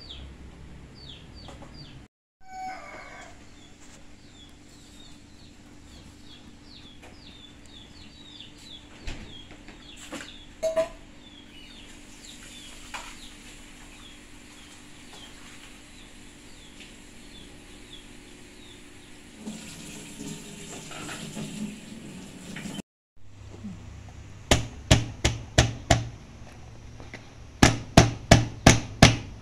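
Chickens clucking and peeping in the background, with a run of short falling chirps. Near the end, lemongrass stalks are pounded with a pestle on a plastic cutting board: two quick runs of about seven sharp blows each.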